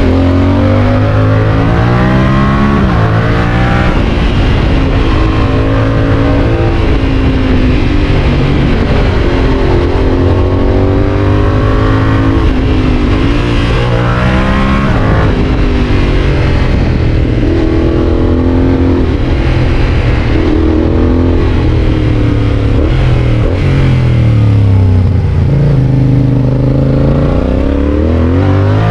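Yamaha Tracer 7's parallel-twin engine through an aftermarket GPR exhaust, pulling hard and easing off again and again. Its pitch climbs and then breaks sharply at the gear changes, and winds down once as it slows.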